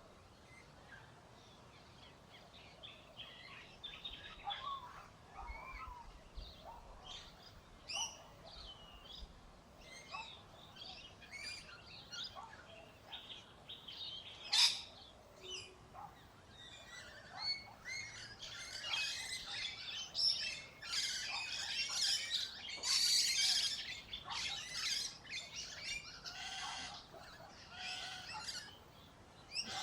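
Birds chirping and calling in short, quick notes, scattered at first and becoming busier and louder in the second half.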